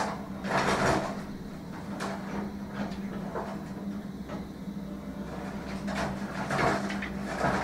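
Hyundai 180LC-7 excavator's diesel engine running steadily. Over it come bursts of crunching and scraping as the demolition grapple bites into and tears at corrugated iron roofing and its timbers, loudest about a second in and again near the end.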